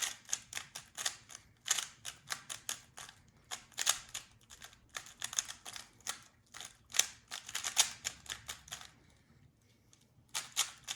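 Rubik's cube being turned quickly by hand: fast runs of plastic clicks and clacks as the layers snap round, several a second, with a short pause about nine seconds in before the turning starts again.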